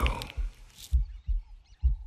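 Deep, muffled thumps in pairs, like a heartbeat, twice over: low drum pulses in a tense documentary score.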